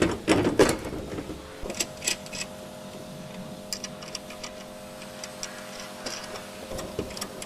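Irregular light metallic clicks and taps of hand tools and fasteners as a brake-line bracket is refitted to a front coilover strut, over a faint steady hum.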